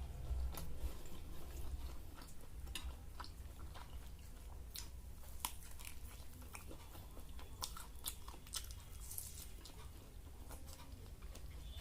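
A person chewing and biting food, with scattered short, crisp crunches and mouth clicks.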